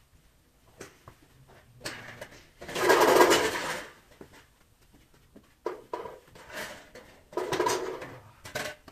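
Golf practice swings: two swishing, rustling bursts about a second long, the louder one about three seconds in and another near the end, with a few sharp clicks between them.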